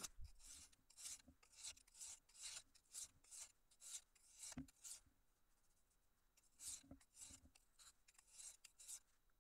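High-carbon steel knife blade stroked back and forth across a very fine, oiled sharpening stone: faint, quick scraping strokes, about two a second, with a pause of a second or so midway.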